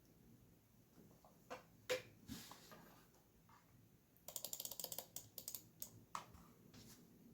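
Faint typing on a Neo 80 mechanical keyboard: a few separate keystrokes, then a quick run of rapid keypresses a little past halfway, then a few more scattered ones.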